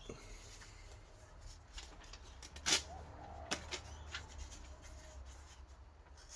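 Quiet handling of a knife and a sheet of paper at a workbench: a sharp click a little under three seconds in, a smaller one about half a second later, and faint rustling over a low steady hum.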